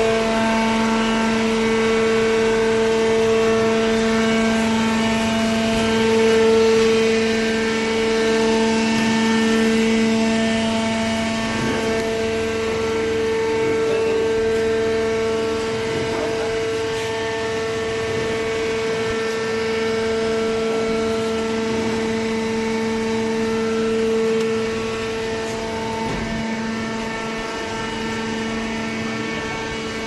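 Hydraulic cardboard baler's electric motor and hydraulic pump running, a steady pitched hum that does not change in pitch.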